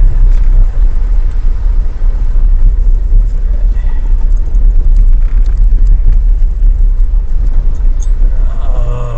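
Jeep driving on a dirt trail: a loud, steady low rumble of engine and road noise.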